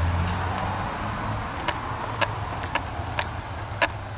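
Footsteps walking outdoors, sharp steps about two a second, over a steady rush of background noise.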